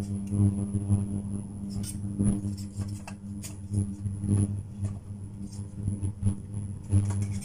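Metal tongs clinking and knocking against a stainless steel bowl and stockpot as chunks of carrot and corn are lifted and dropped into the pot, several irregular clinks. A steady low hum runs underneath.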